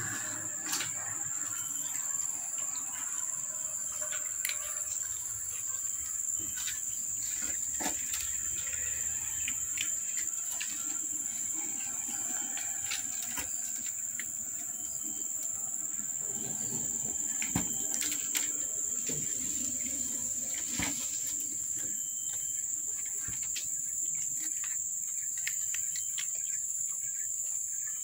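Insects chirring in a steady, high-pitched drone, with scattered clicks over it.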